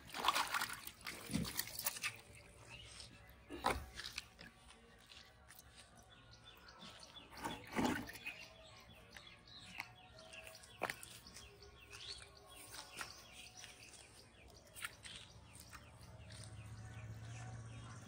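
Faint outdoor ambience by a pond, with a rustling burst at the start, a few sharp knocks and small clicks, and a faint low hum that comes in near the end.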